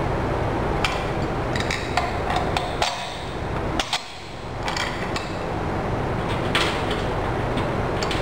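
Irregular light clicks and taps of metal tools and parts being handled as a clutch booster is reassembled in a bench vise, over a steady background hum.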